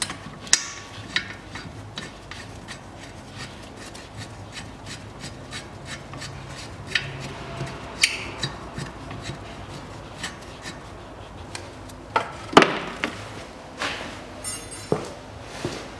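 Hand work on a car's front brake caliper: small metallic clicks, taps and scraping, with the loudest clatter about twelve and a half seconds in and a short rapid rattle soon after.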